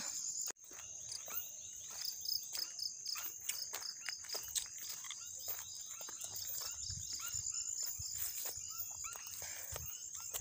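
Insects droning steadily at a high pitch, with irregular footsteps and rustling along a dirt forest trail.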